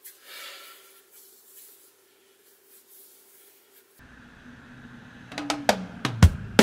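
Faint rustling over a steady low hum. About four seconds in, acoustic guitar music starts with a few plucked notes and strums that grow louder toward the end.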